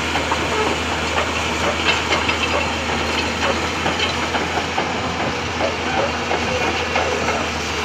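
Hyundai 220-9S excavator's diesel engine running steadily while it loads stone and sand, with scattered knocks and clatter throughout.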